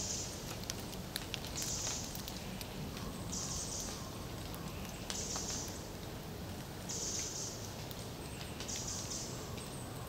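A small animal's short, high, buzzy call repeating at an even pace, about every second and three-quarters, over a steady low forest background hum, with scattered small clicks.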